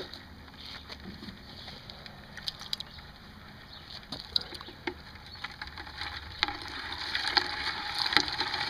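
Salt water and live crayfish in a plastic bucket being stirred with a stick, sloshing with scattered light clicks and knocks, more vigorously in the last couple of seconds; this is the salt purge that cleans the crayfish out.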